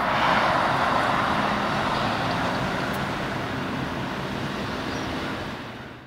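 Steady road and traffic noise of a car driving, fading out near the end.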